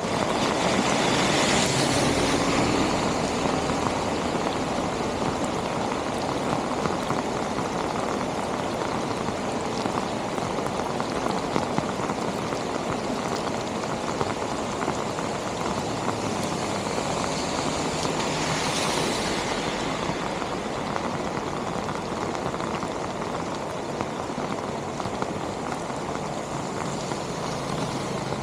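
Steady rushing water with rain falling, an even noise that eases slightly after the first few seconds, over a faint low hum.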